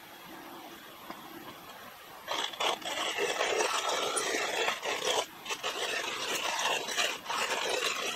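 Hand-cranked coffee mill grinding coffee beans: a loud, gritty crunching that starts about two seconds in and runs on with brief breaks.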